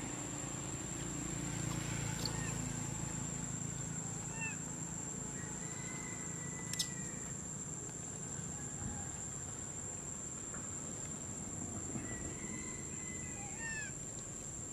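Outdoor ambience: a steady high-pitched whine and a low rumble. A few short, hooked chirps come about a third of the way in and again near the end, with one sharp click near the middle.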